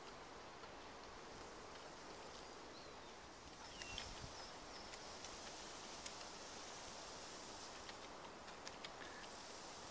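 Hand-pumped backpack sprayer misting liquid onto a pile of coffee pulp: a faint hiss that grows louder about four seconds in, with scattered sharp clicks.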